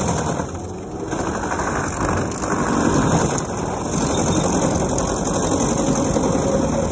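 Vermeer FT300 stump grinder running under load, its toothed cutter wheel chewing into a stump and soil over the steady noise of its engine. The loudness swells and dips slightly as the wheel bites.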